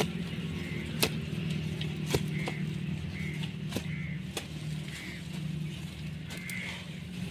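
A few sharp knocks of a digging tool cutting into the soil around a shrub's root ball, over a steady low engine hum.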